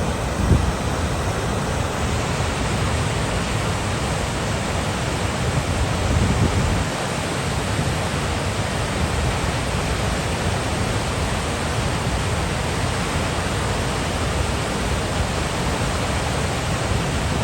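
Waterfall in full flow, swollen by heavy rain: a steady rush of falling water, with brief low rumbles about half a second in and around six seconds.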